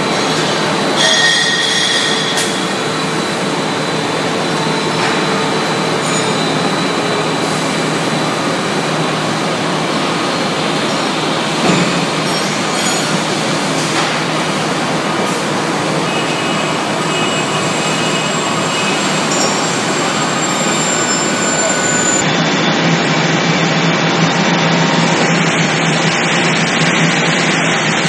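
Steady, loud machinery noise with a few faint whining tones above it, changing character about 22 seconds in.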